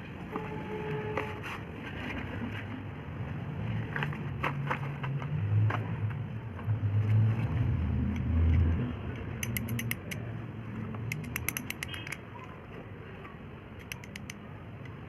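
Box of slate pencils being unpacked and handled: scraping and rustling with scattered light clicks, a quick run of crisp clicks about ten to twelve seconds in as the pencils knock together, and a low rumble in the middle.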